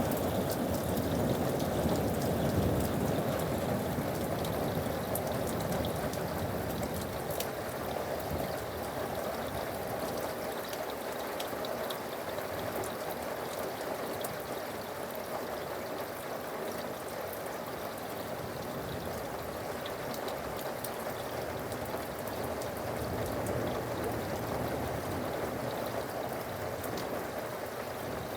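Steady rain falling, with the sharp ticks of individual drops hitting a surface throughout. The tail of a thunder rumble dies away in the first few seconds.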